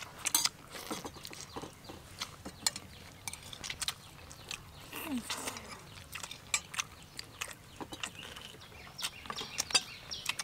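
Eating sounds: scattered wet smacks and clicks of people chewing and biting into grilled chicken legs held in their hands. About five seconds in, a brief low sound falls in pitch.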